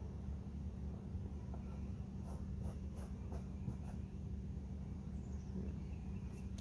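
Light scratching and ticking as lace and denim are handled and pressed down while hot-gluing, a quick run of small ticks about two seconds in, over a steady low hum.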